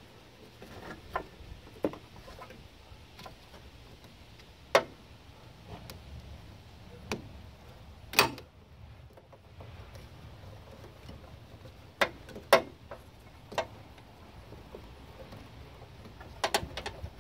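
A screwdriver prying and wiggling a plastic wiring-harness connector and its clips free: a dozen or so sharp clicks and taps at irregular intervals.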